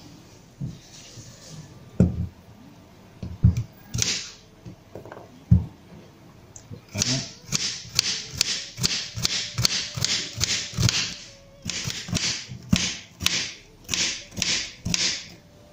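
Kitchen knife slicing a bitter gourd into thin rounds on a wooden cutting board: a few scattered knocks at first, then a steady run of crisp cuts, about two a second, each ending in a tap of the blade on the board.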